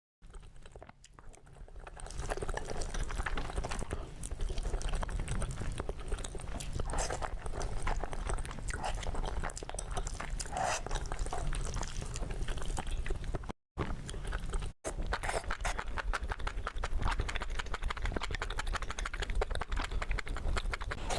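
Mukbang-style eating sounds: a person chewing, with dense irregular clicks and smacks, cutting out briefly twice about two-thirds of the way through.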